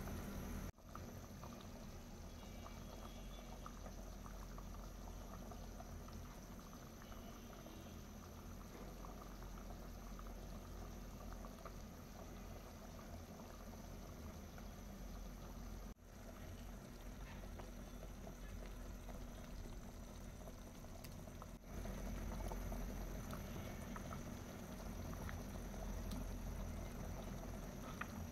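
Beef and potato curry boiling in a pot, a steady faint bubbling. Brief dropouts about a second in and halfway through, and the level steps up near the end.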